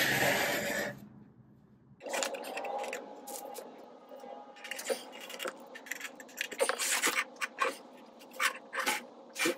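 Hands fitting metal side mounting brackets onto a car stereo head unit in its plastic dash trim bezel: a loud rubbing scrape for about the first second, then scattered small clicks, taps and scrapes of plastic and metal.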